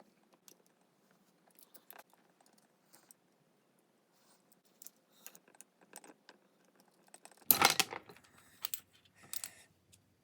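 Light clicks and small metal clinks of hand tools and carburetor parts being handled while a main jet is taken out of a dirt-bike carburetor, with a louder metallic clatter about seven and a half seconds in.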